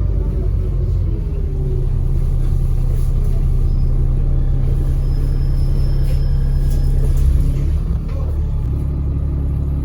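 ADL Enviro400 double-decker bus's diesel engine pulling under way, heard from on board as a loud, steady low drone that shifts in tone about eight seconds in. A faint high turbo whistle sits over it in the middle.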